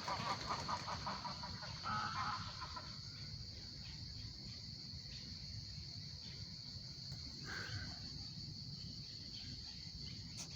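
Geese honking, a run of calls over the first two to three seconds that then stops, with one more short call about eight seconds in. Behind them a steady, high-pitched insect chorus carries on.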